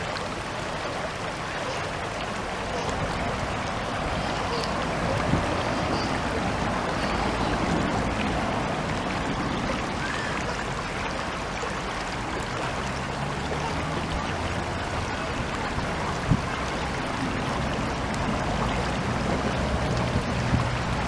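Running water of a mountain stream, a steady even rush.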